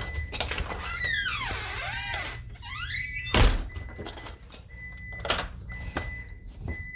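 A door's hinges creak in long gliding squeaks as it swings, then the door shuts with a sharp thud about three and a half seconds in. Through it the Honeywell alarm keypad sounds its exit-delay beeps, a high tone that comes and goes, showing the system is counting down after being armed away.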